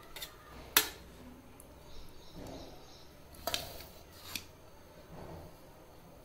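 Steel serving spoon clinking against a steel pressure cooker and plate while rice is scooped out and served, with about five sharp clinks, the loudest about a second in, and soft scooping sounds between them.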